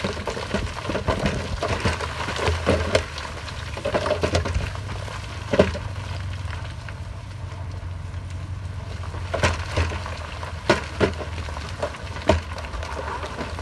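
Heavy earthmoving machine's diesel engine running steadily under load, with repeated sharp cracks and knocks of material being crushed and broken, the loudest a little before six seconds in and a cluster between about nine and twelve seconds in.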